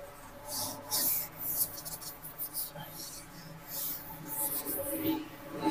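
A series of short scratchy brushing and rubbing strokes from hands working on a laptop's parts, uneven in timing.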